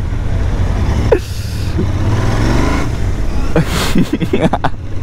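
Royal Enfield Interceptor 650's 648 cc parallel-twin engine running through its stock exhausts as the bike rides off in traffic, a steady low rumble throughout, with a few brief voice fragments over it.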